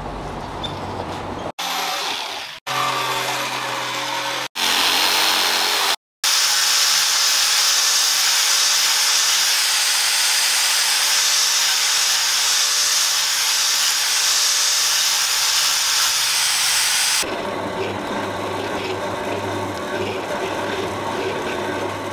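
Workshop power tools in a run of short cuts: an angle grinder fitted with a sanding pad working a wooden handle strip, then a long, steady stretch of a drill press drilling holes through a handle piece.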